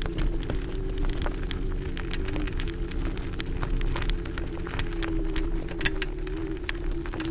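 Segway Ninebot Max G30D electric scooter riding on a gravel forest path: the hub motor gives a steady, slightly wavering whine over the tyre rumble, with frequent sharp clicks and rattles from the gravel and the scooter's frame.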